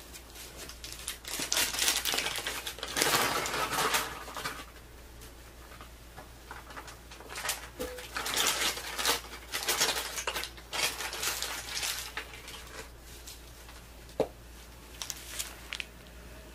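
A plastic piping bag crinkling and rustling as it is handled, in two long stretches of bursts, with a single sharp tap near the end.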